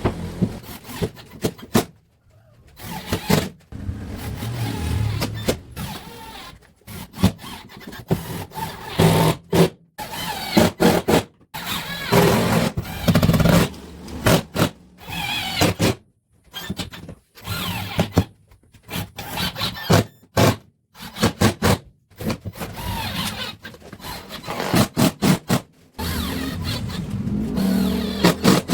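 Woodworking power tools working on wood, heard in many short snippets that start and cut off abruptly.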